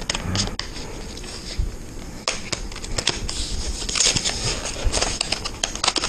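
Cardboard retail box of a Samsung 980 Pro M.2 SSD being opened by hand: irregular clicks, crinkles and rustles as the flaps and plastic tray are worked loose, thicker about four to six seconds in.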